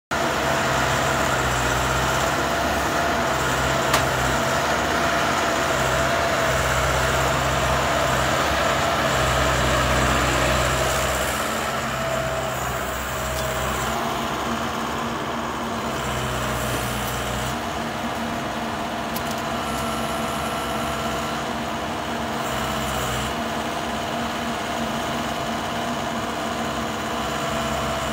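Wheeled sugarcane loader's diesel engine running under working load with a steady whine, louder for about the first ten seconds and then settling lower. There is a single sharp click about four seconds in.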